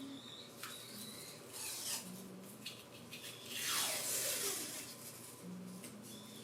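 Scraping and rubbing strokes of a hand tool working the guitar's wood: several short strokes, then one longer, louder stroke in the middle that falls in pitch.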